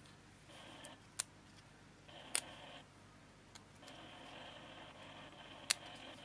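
Small pick clicking against the brush holder of a BMW E38/E39 auxiliary coolant pump's electric motor while its carbon brushes are worked loose. There are three sharp clicks, about a second in, past two seconds and near the end, over soft rustling of gloved hands.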